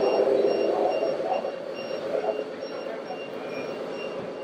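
A scale RC truck's sound-module reversing warning beeper, sounding a steady run of short high beeps, about two to three a second, over a background hum of model motors and voices.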